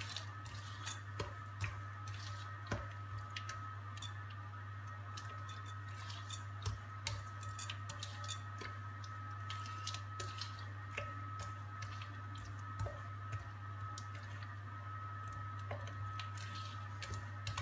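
Softened butter and sugar being creamed by hand in a glass bowl: soft squishing with many irregular light clicks against the glass, over a steady low hum.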